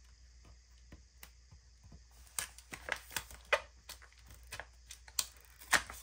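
Sticker sheets and sticker book being handled at a desk, a clear sticker being pulled for the spread: a scattered run of light clicks and taps, more frequent from about two seconds in.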